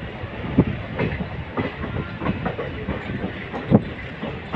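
Passenger train's wheels clattering over rail joints and points, a steady rumble broken by irregular knocks, with one louder knock about three-quarters of the way through.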